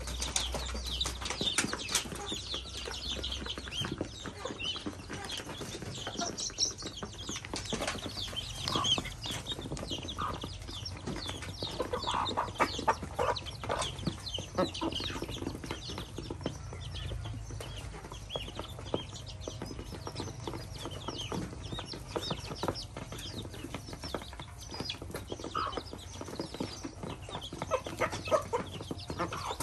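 A mixed flock of chickens and ducklings feeding together: hens clucking and chicks and ducklings peeping constantly, with many quick pecking taps.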